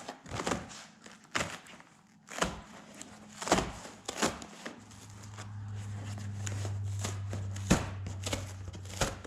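Upholstery covering being pulled back off a truck sleeper door panel: scattered sharp rustles, clicks and handling knocks. A low steady hum comes in about halfway through and stops shortly before the end.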